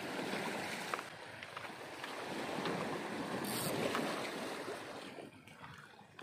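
Small waves washing against a rocky reef shore, with wind on the microphone. The sound drops noticeably quieter about five seconds in.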